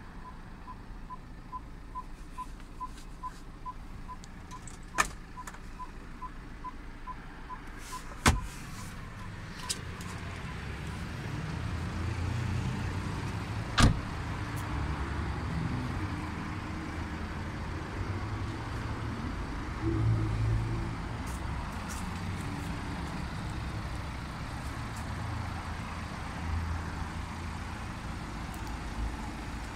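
Short high electronic beeps from the BMW 1 Series repeat about twice a second for the first eight seconds, with a couple of sharp clicks. About fourteen seconds in, a car door shuts with a solid knock, the loudest sound, and a low uneven rumble follows.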